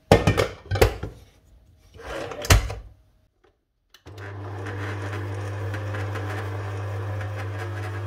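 A stainless-steel stand-mixer bowl knocking three times as it is set and locked onto the mixer base. About four seconds in, the stand mixer's motor starts and runs with a steady hum as the flat beater works butter and egg into the dry flour mix, making a crumbly pastry dough.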